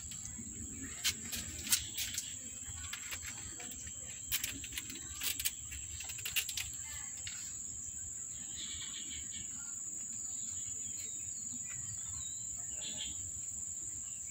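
Steady high-pitched trilling like crickets, with a scatter of sharp clicks and rustles through the first half.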